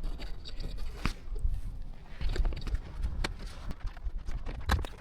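Irregular crunches and knocks in snow, with a steady low rumble underneath.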